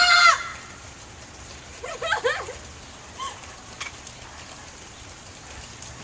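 Steady rain falling and pattering on hard surfaces. A high-pitched shout at the very start and a short wavering cry about two seconds in sound over it.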